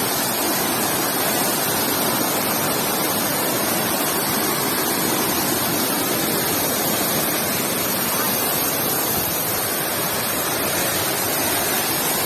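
Ngaloi waterfall's falling water making a steady, even rush of white noise with no change.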